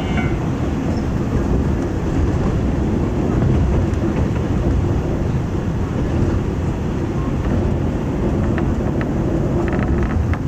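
Steady running noise of a diesel railcar heard from inside the cabin: the underfloor engine and wheels on rail as the train travels at speed. A level-crossing bell is heard briefly at the start as the train passes the crossing.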